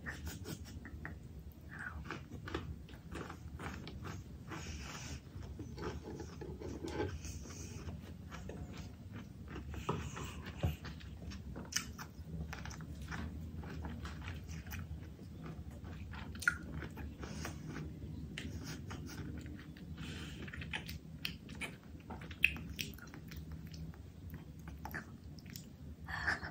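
A person chewing and biting food close to the microphone: irregular wet mouth clicks and smacks, with a few sharper louder clicks, over a low steady hum.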